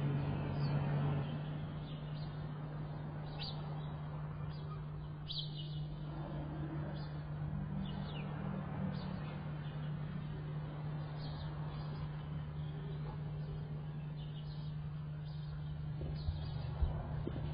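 Scattered short bird chirps over a steady low hum.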